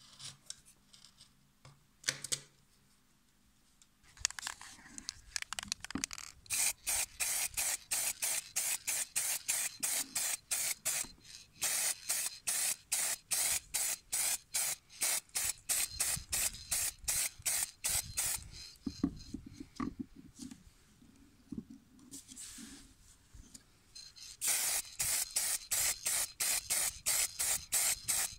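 Aerosol spray paint hissing in rapid, evenly spaced short bursts, about three a second, as a coat is sprayed on. The bursts start a few seconds in, ease off for several seconds past the middle, then come back strongly.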